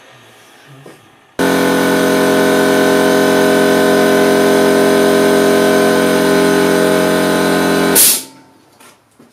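Homemade small jet engine spinning at a steady speed: a loud, steady whine with many tones over a rushing hiss. It starts suddenly about a second and a half in and cuts off abruptly with a brief louder burst near the end.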